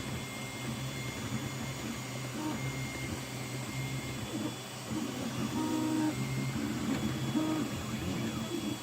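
Anet A8 3D printer printing: its stepper motors whine in short tones that jump between pitches as the print head moves, over a steady low hum.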